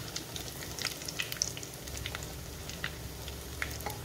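Breaded beetroot cutlets shallow-frying in hot oil, a steady sizzle with scattered crackles and pops.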